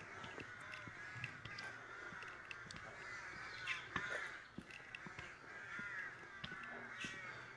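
A large flock of crows calling together, many overlapping caws at once: the noisy chorus of birds gathering to roost.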